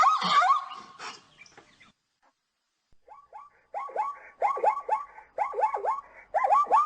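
Zebra calling: a rapid series of short, yelping bark notes, several a second. The first series fades out within the first two seconds, and after a short pause a new series starts about three seconds in and grows louder.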